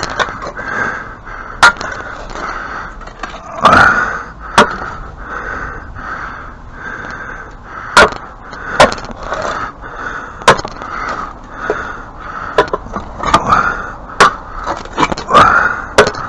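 Hand-digging dirt out of a step: irregular sharp knocks and scraping of a tool against wood and packed dirt, a dozen or so strikes at uneven intervals.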